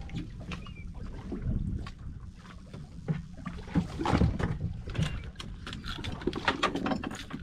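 Steady low rumble on a small fishing boat, with scattered clicks and knocks as rockfish are handled over a plastic barrel.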